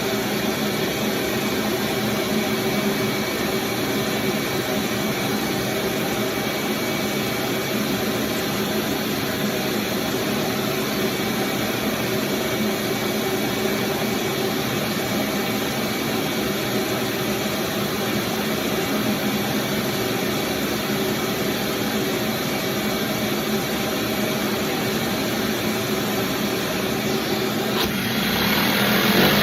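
A small engine running steadily with an even hum. About two seconds before the end it gets louder and its pitch starts to waver, as if being revved.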